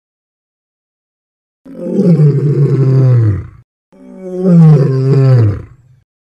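A male lion roaring twice, each roar about two seconds long and falling in pitch; the first starts a little under two seconds in.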